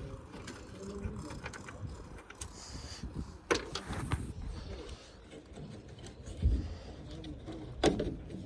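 Scattered clicks and knocks of hand tools and plastic as a pickup's tail light is worked loose, the sharpest knock about three and a half seconds in, over a low rumble of wind on the microphone.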